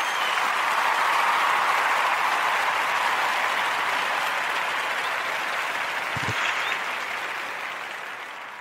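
Crowd applause that swells up at the start and slowly fades out toward the end, with a short whistle near the start and a brief low thump about six seconds in.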